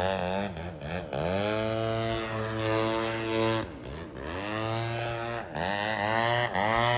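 Radio-controlled aerobatic model airplane's engine and propeller running, the pitch sliding down and back up several times as it is throttled back and opened up during manoeuvres, with brief dips in level.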